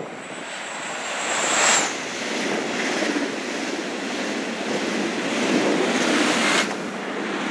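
ÖBB Railjet passenger train passing at speed directly beneath, a loud rushing noise of wheels and air that builds as the driving trailer arrives, with a high whine that drops away as it goes under about two seconds in. The rushing goes on as the coaches pass and stops abruptly near the end as the locomotive at the rear clears, with storm wind buffeting the microphone.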